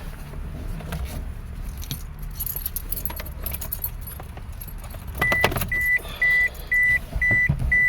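Car keys jangling and clicking as they are handled. About five seconds in, a high electronic warning beep starts, repeating about two and a half times a second.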